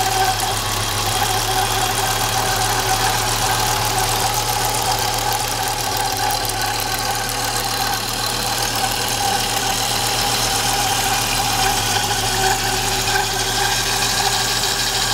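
Audi Coupe 2.3 NG inline five-cylinder engine idling steadily, with a constant high-pitched squeak running over it. The squeak appears only when the idle drops below 1000 rpm.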